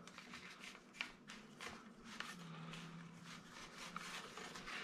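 Faint rubbing and light scuffing of pizza dough being pushed and shifted by hand on a perforated pizza peel, with a small tick about a second in.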